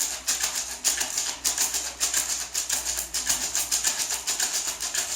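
Gourd maraca shaken in a steady rhythm, a dry rattle of seeds with several shakes a second and short gaps between runs of strokes.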